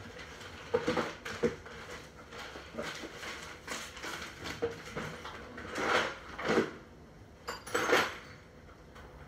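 Hard objects being handled: a few sharp knocks and clatters, then louder scraping or rustling handling noises later on.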